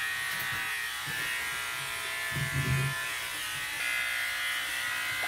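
Steady electric buzz of a small motor running, with a short low sound about two and a half seconds in.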